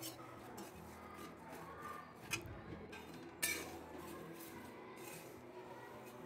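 Steel spatula stirring and scraping dry flattened rice (thin poha) around a steel kadhai as it dry-roasts. It is faint, with two sharper metal clinks about two and a half and three and a half seconds in.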